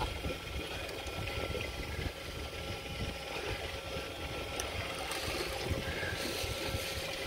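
Boat engine running steadily, with wind buffeting the microphone and water washing past the hull.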